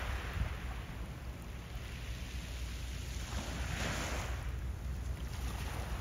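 Wind blowing across the microphone: a steady low rumble under an even hiss, with a louder hissing gust about four seconds in.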